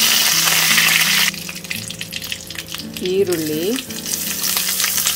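Curry leaves spitting and sizzling in smoking-hot mustard oil in a kadai. The hiss is loudest for the first second, then drops to a lighter crackle with sharp pops. Chopped onion is tipped into the oil near the end.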